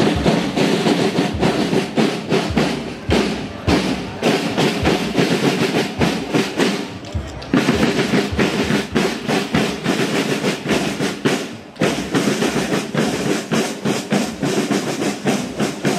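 Bavarian marching band playing in a street parade: a rank of snare drums rattling a brisk marching beat with a bass drum, and brass (tubas and horns) playing the tune along with them.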